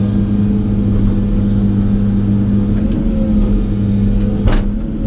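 Excavator's diesel engine running steadily with a constant low hum, and a single sharp knock about four and a half seconds in.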